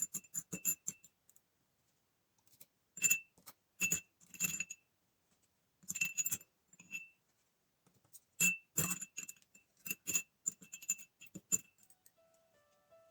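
Tiny cast model tools rattling and clinking against a glass jar as they are swirled and shaken in white spirit, in irregular bursts with a short glassy ring. Soft piano music comes in near the end.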